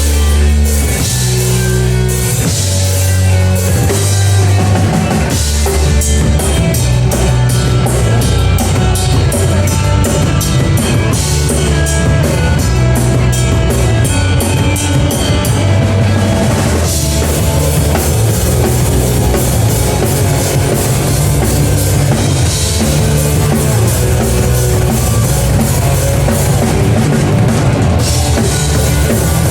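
Rock band playing live, with a driving drum kit and bass line.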